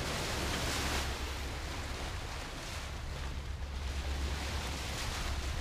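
Ocean waves washing: a steady hiss that swells a few times, over a low rumble.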